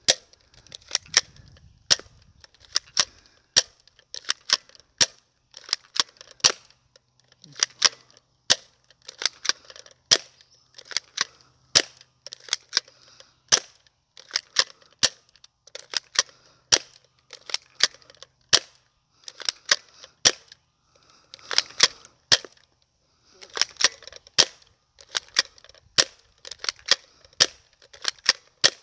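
Hydro Strike Nebula Pro gel bead blaster firing over and over at close range, roughly one or two sharp snaps a second, often in quick pairs, with each gel bead striking a panel target hard and bursting.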